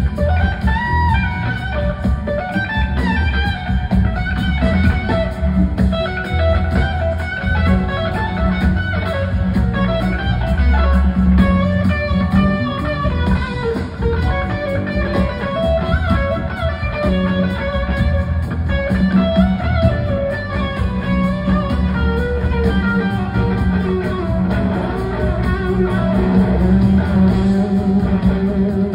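Live blues-rock band playing, led by an electric guitar over bass guitar and the band.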